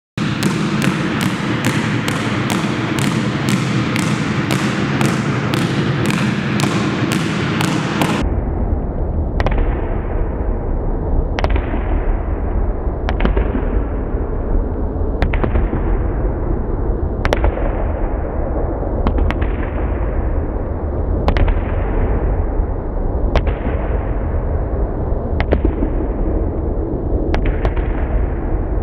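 Background music with a steady beat, about two hits a second; about eight seconds in it changes abruptly to a deep bass with one sharp hit about every two seconds.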